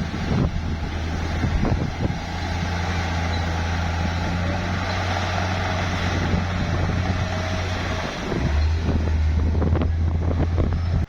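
Bulldozer's diesel engine running steadily, its pitch shifting about eight seconds in, with scattered knocks and clanks in the last few seconds.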